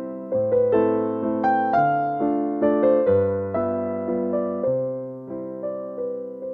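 Background piano music: a slow melody of struck notes, about two or three a second, each one fading away.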